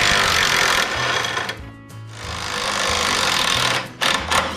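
Pneumatic tool rattling hard in two long bursts with a short pause between them, then a few sharp clicks near the end.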